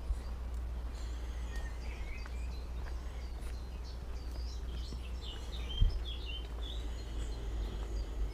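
Several small birds chirping and singing in short, scattered phrases over a steady low rumble, with a single soft thump about six seconds in.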